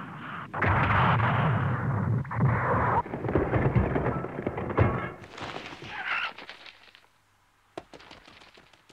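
Explosion sound effect of a blast through sand: a loud rushing roar broken by several sharp crashes, fading to a hiss after about five seconds, then a few small clicks and patters near the end.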